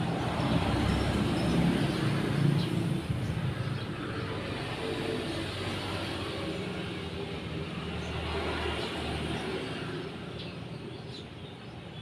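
Road traffic: a low rumble of vehicle engines and tyres, loudest in the first three seconds, then a steadier, quieter hum. A few faint short chirps of Eurasian tree sparrows sound over it.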